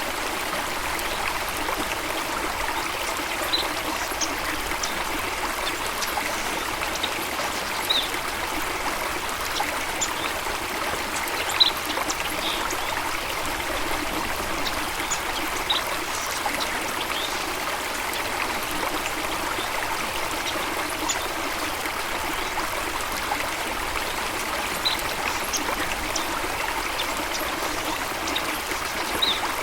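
A steady rush of flowing water, with brief high bird chirps scattered through it.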